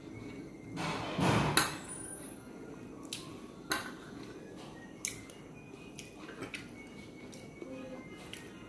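Metal spoon scooping curry from a ceramic bowl: a loud scrape about a second in, then a few sharp clinks of spoon on china.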